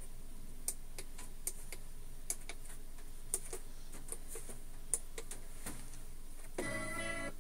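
Irregular light taps and clicks of small hands striking the rubber pads and buttons of a Native Instruments Maschine drum-pad controller. Near the end there is a short buzzy pitched tone.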